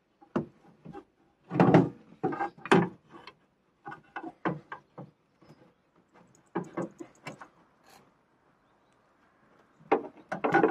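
Irregular knocks, clunks and rattles of metal and plastic as a car jack is worked loose from its place beside the battery in a van's engine bay. The loudest knocks come in the first few seconds and again near the end.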